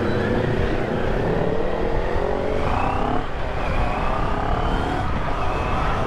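CFMoto NK400 motorcycle engine accelerating in traffic. The note rises, dips at a gear change about three seconds in, then climbs again, over a steady low wind rumble on the microphone.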